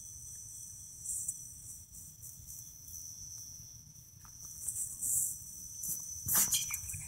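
Crickets singing, a steady high-pitched trill, with a brief scuffing noise near the end.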